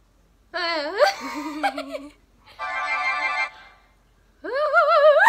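A girl imitating a phone text-message tone with her voice, in sliding, wavering pitches. A short electronic tone with many steady notes comes in the middle, and a wavering, laugh-like sound follows near the end.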